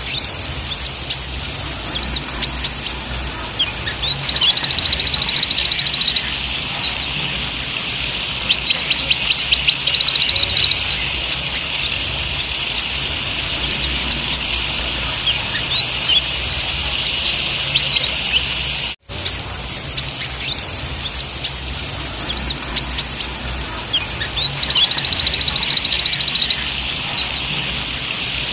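Kolibri ninja sunbirds calling: scattered thin, high chips and several stretches of fast, even trills, over a steady hiss. The sound cuts out briefly about two-thirds of the way through.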